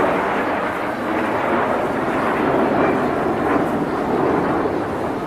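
Steady airport background noise: a dense, even rush with no distinct voices or announcement.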